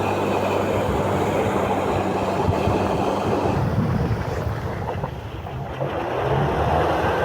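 Engine of a tyre-propelled amphibious all-terrain vehicle running while it swims, a steady low drone with a rushing noise over it. The drone eases off and the sound drops for a moment about five seconds in, then picks up again near the end.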